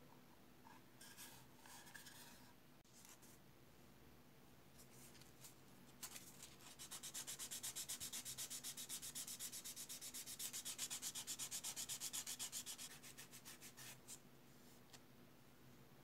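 Sanding block rubbed fast back and forth over a small plastic kit part, a dry hissing scrape at about five strokes a second. It starts about six seconds in, stops near the end, and is preceded by light handling rustles.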